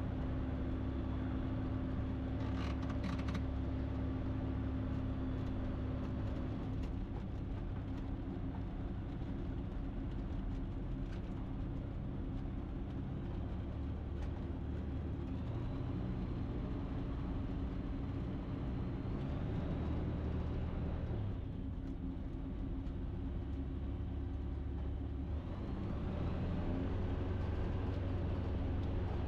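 Ikarus C42 microlight's engine and propeller running at low power while the aircraft taxis along the runway. The drone is steady, with a few small shifts in engine note partway through and near the end.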